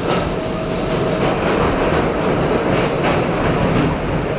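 New York City Subway R142A train running, a steady rumble of wheels on the track with repeated rail clacks. A steady tone stops about a second in, and a faint high-pitched squeal comes in around three seconds.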